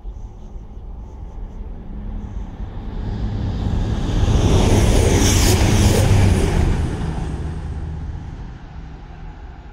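A vehicle passing by, unseen: a rushing noise that builds for a few seconds, is loudest about five seconds in, then dies away, over a steady low hum.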